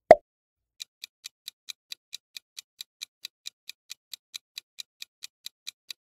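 A quiz countdown timer's clock-tick sound effect ticks evenly, a little under five ticks a second, as the timer runs down. Just as it begins there is a single short thump, louder than the ticks.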